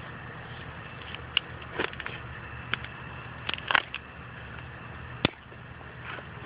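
Long-handled bypass loppers snipping small girdling roots at a tree's root collar: several sharp snaps and clicks, the loudest about three and three-quarter seconds and five and a quarter seconds in, over a steady engine hum.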